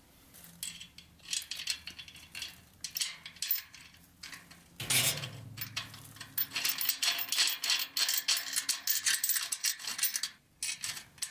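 Small metal hardware clicking and rattling as a nut and bolt are fitted to the steel frame of a mesh garden cart. There is a louder knock about five seconds in, then a dense run of fast clicks for several seconds.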